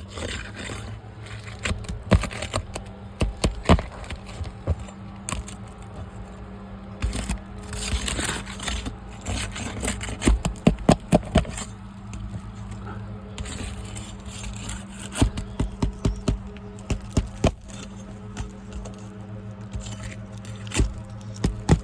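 Asphalt roof shingles being worked loose and handled for a repairability test: irregular sharp clicks, snaps and scrapes, busiest in the middle, over a steady low hum.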